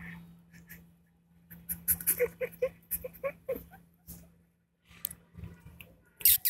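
A small dog whimpering in a quick run of about seven short, squeaky yelps, among scattered clicks and knocks, with one sharp knock near the end.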